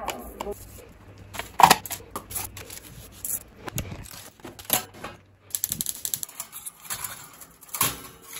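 Irregular clicks, taps and clatter of hands handling kitchen utensils: a metal mesh strainer of bamboo charcoal knocking against plastic tubs, then aluminium foil and a metal grill tray being set into a stove's grill. A quick run of rattling clicks comes about six seconds in.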